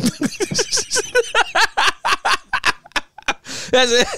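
Two men laughing hard together in a run of quick bursts, ending in a higher, wavering laugh near the end.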